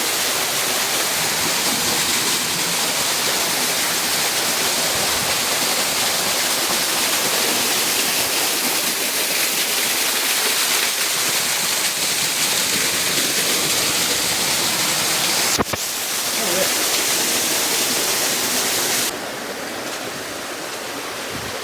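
Steady rush of flowing water, like a jungle stream or small waterfall. There is a single click about 15 seconds in, and about 19 seconds in the hiss suddenly loses its high end and grows a little quieter.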